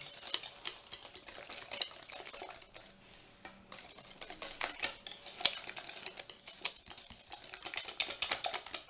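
A utensil stirring thick chocolate brownie batter in a mixing bowl, with irregular clicks and scrapes against the bowl's sides; the stirring eases briefly about a third of the way through.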